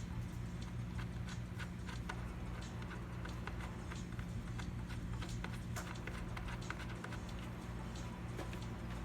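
Irregular light clicks and taps, several a second, of small computer parts being handled during assembly, over a steady low hum.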